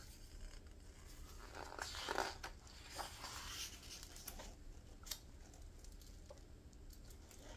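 A page of a hardbound yearbook being turned by a gloved hand: faint paper rustling and swishes around two and three seconds in, then a small tick about five seconds in.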